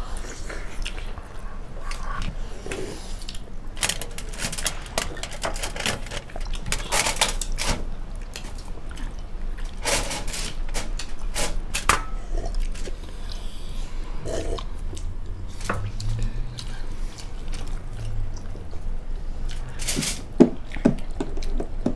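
Wet mouth sounds of people eating steamed chicken momos: chewing, lip smacks and sharp clicks coming irregularly, many of them a second or so apart.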